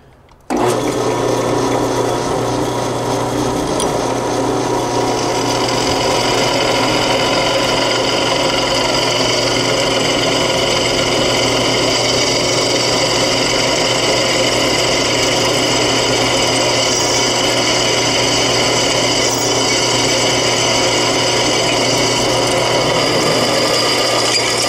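Drill press running, its freshly hand-sharpened twist drill cutting into a metal plate: a steady motor hum under a constant cutting noise, starting abruptly about half a second in.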